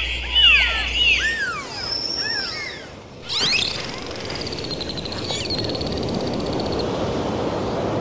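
Dolphins whistling: a quick run of short rising-and-falling whistles, then about three seconds in a sharp upward-sweeping whistle that turns into a buzzing, pulsed call. A steady rush of sea water runs under the second half.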